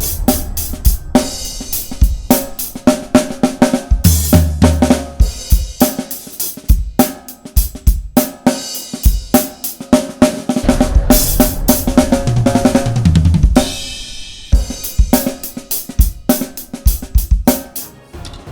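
Pacific Drums 805 series drum kit with a Mapex snare and Sabian cymbals played fast and hard: snare, bass drum, hi-hat and cymbal hits in dense runs, over a backing track with a steady bass line.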